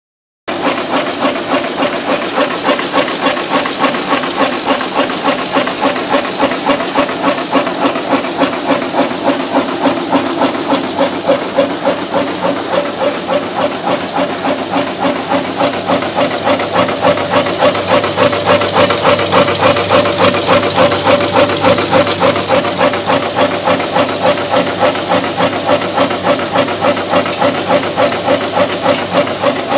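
Thread rolling machine and its vibratory bowl feeder running continuously: a fast, even clatter of strokes with a steady hum and hiss underneath.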